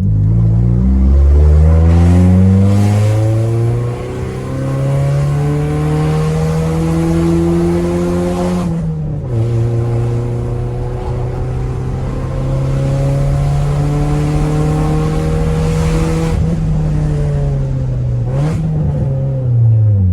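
Honda Civic EJ6's four-cylinder engine under hard acceleration, its revs climbing steadily, dropping for a gear change about nine seconds in, climbing again, then falling off the throttle with a brief rev near the end.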